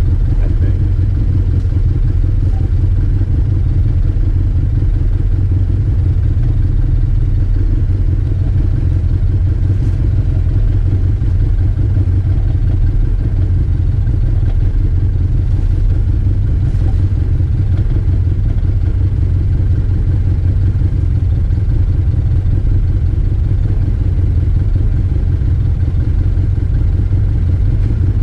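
Arctic Cat Wildcat Trail 700's single-cylinder engine running steadily at low speed as the side-by-side crawls along a rough dirt trail, heard from on board, with a deep, even engine note and no rises in revs.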